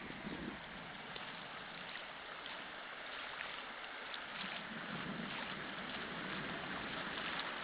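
Muddy rainwater runoff rushing over grass in a steady, churning flow, growing slightly louder toward the end.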